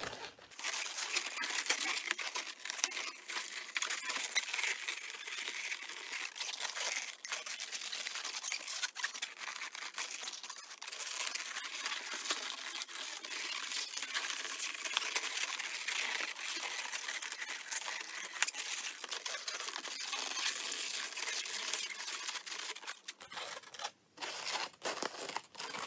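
Inflated 260Q latex modelling balloons rubbing and twisting against each other and the hands, a continuous dense rustle that drops away near the end.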